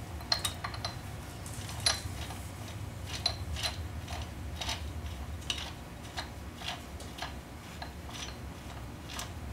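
Light, irregular metallic clicks, about one or two a second, of socket head cap screws being turned in finger-tight through a bearing-installation tool plate into a motorcycle transmission case, over a steady low room hum.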